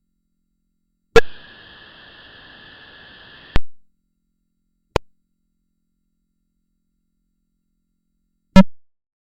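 Unprocessed synthetic sound effect of sharp electronic clicks. About a second in, a click is followed by a faint steady high hiss that ends in a second click. A short tick follows, then a lower-pitched click near the end, with silence between.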